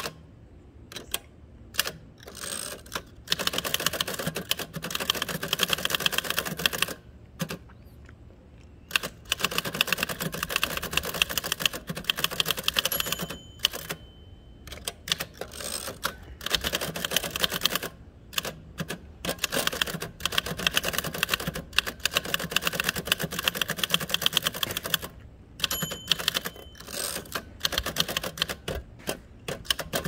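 1949 Adler Favorit 2 thrust-action portable typewriter being typed on in fast runs of keystrokes with short pauses between them. Twice a short bell rings near the end of a line and the carriage is returned before typing resumes.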